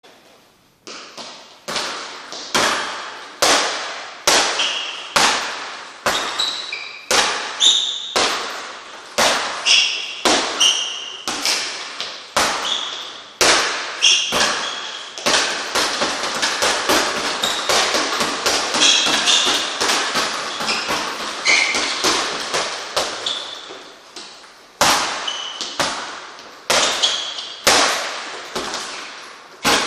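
Gloved punches smacking a leather double-end bag on elastic cords: a steady run of sharp hits about one or two a second, speeding into a rapid, dense flurry from about halfway through, then spacing out again near the end.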